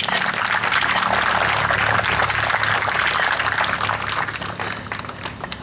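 Crowd clapping, starting at once and thinning out near the end.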